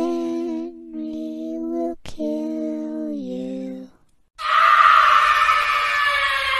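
A slow, wordless vocal melody of long held notes. After a brief silence a loud scream follows, falling in pitch as it fades.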